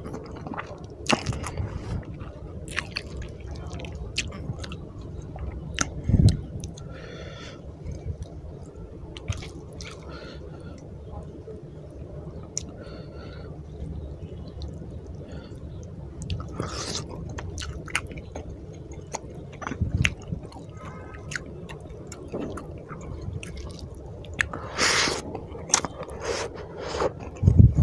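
Close-miked wet chewing of a mouthful of fish curry and rice, with many sharp wet clicks, and squishing as fingers work rice into the curry gravy.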